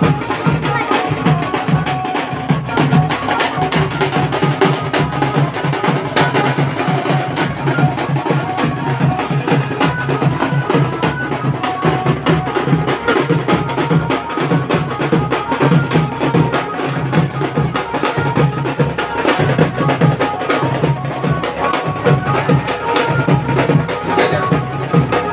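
Loud procession music driven by fast, continuous drumming, with a melody running above it.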